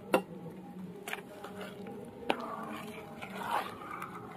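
Metal ladle stirring wet pea and rice-flour batter in a metal bowl: scraping and squishing, with three sharp clinks of the ladle against the bowl, the loudest right at the start and another about two seconds in.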